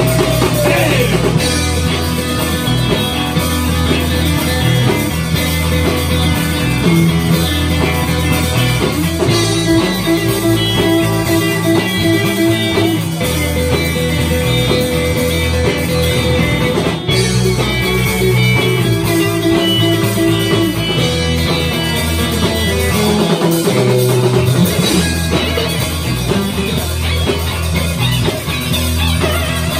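A live rock and roll band playing: electric guitars over a drum kit, with a strong low end.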